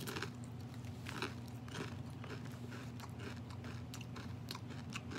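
A mouthful of Doritos tortilla chips being chewed, with many small irregular crunches, over a steady low hum.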